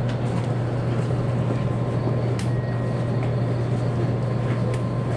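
JR Kyushu 813 series electric train running along the line, heard from inside the front car: a steady low hum over constant running noise, with a few sharp ticks.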